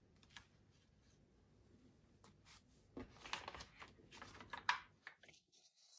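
Faint paper rustling as a coloring-book page is handled and turned, a few soft rustles and crinkles in the second half.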